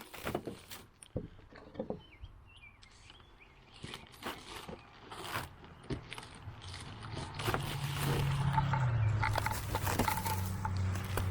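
Scattered knocks, clicks and rustles of sawmill shipping packaging being handled and cut open. About seven seconds in a steady low hum starts and dips slightly in pitch partway through.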